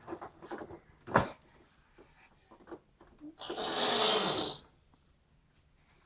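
Hands tapping and pressing the hard plastic body of a canister vacuum cleaner that is switched off: a few short knocks, the sharpest about a second in. Midway through comes a loud hissing rush that lasts about a second.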